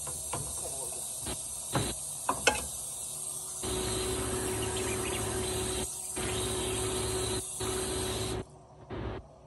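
A metal spoon and fork clink and scrape against a glass baking dish as seasoned chicken strips are tossed, with several sharp clicks in the first few seconds. About halfway through, a steady hiss with a low hum starts and runs for several seconds, broken briefly twice.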